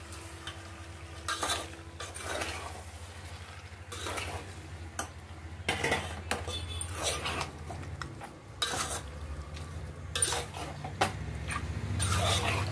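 A metal slotted spoon stirring raw chicken into hot tomato masala in a metal pot: irregular scrapes and clinks against the pot, with a light sizzle and a steady low hum underneath.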